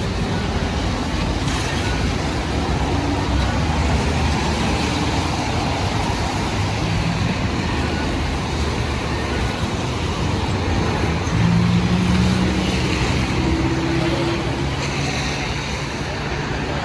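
Steady city road traffic on wet streets, tyres hissing with a low engine rumble; a vehicle passes close and is loudest about twelve seconds in.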